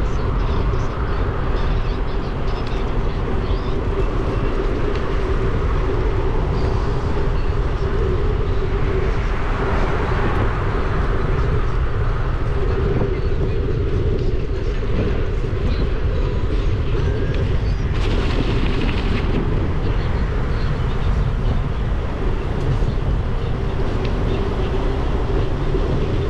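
Riding noise on a GoPro microphone mounted on a moving bicycle: a steady low rumble of wind and rolling tyres, with a steady hum running through it.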